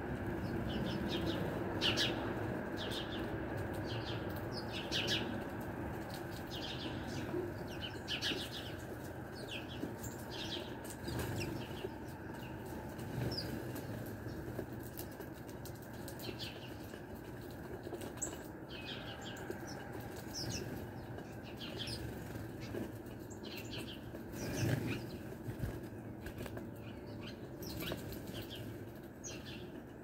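Wings of house sparrows fluttering as they fly in and out, with many scattered short high chirps, over a steady low hum.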